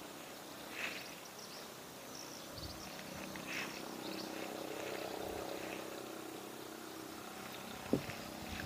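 Steady low hum of a distant motor across the river, with a few short high chirps from birds. A single sharp knock near the end.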